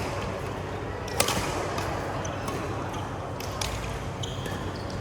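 Badminton rally: sharp racket strikes on a shuttlecock, the loudest about a second in, followed by a few fainter hits, with a brief high squeak of court shoes on the floor near the end.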